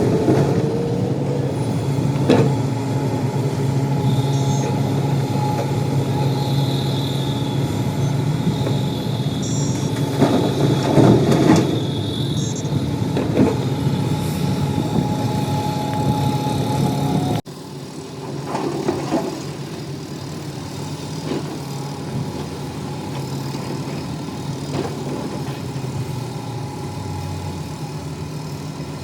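Heavy diesel machinery engine running steadily, with a few sharp clanks. About two-thirds of the way through, the sound cuts abruptly to a quieter engine running.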